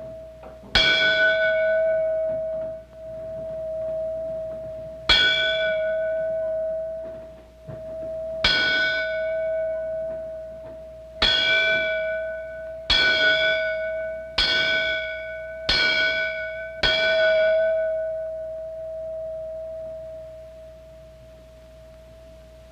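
A small hanging temple bell struck eight times, the strikes coming faster toward the end. Each stroke rings on in one long, steady tone with bright overtones, and the ringing fades away over the last few seconds.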